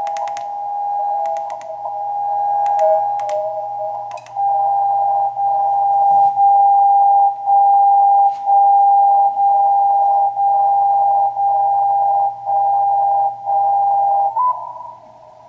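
Communications receiver's speaker playing a steady CW beat tone of about 800 Hz, with a few sharp clicks in the first few seconds as it is retuned. From about four seconds in, the tone is the DCF77 77.5 kHz longwave time signal, dropping out briefly once every second to mark the seconds. Near the end the pitch jumps slightly and the signal falls away.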